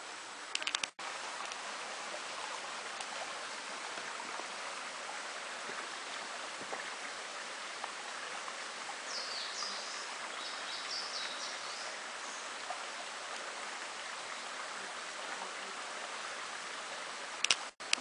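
Steady rush of a mountain stream, with a few short, high bird chirps about halfway through. Brief clicks near the start and near the end.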